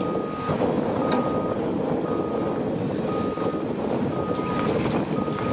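Backup alarm beeping steadily, one half-second beep about every second, over the steady running of heavy earthmoving machinery as an excavator loads a mining dump truck.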